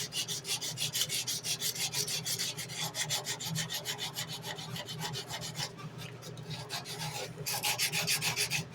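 Sandpaper rubbed back and forth by hand over a steel knife blade in fast, even strokes, about five a second. The strokes ease off for a moment after the middle, pick up again, then stop.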